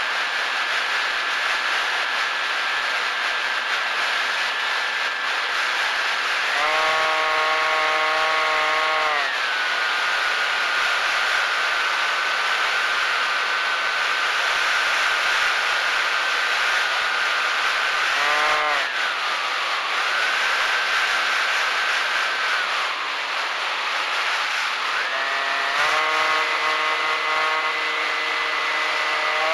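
FPV drone's electric motors and propellers whining over a steady rush of wind on the onboard camera's microphone. The pitch glides up and down with the throttle, turning fuller and higher in bursts about seven seconds in, briefly past the middle, and again in the last few seconds.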